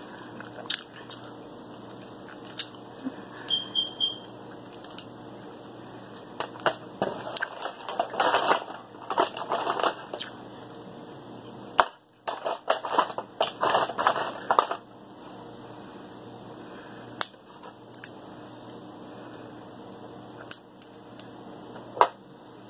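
King crab leg shells being cracked and picked apart by hand, with scattered sharp clicks and two busy stretches of crackling over a steady low hum.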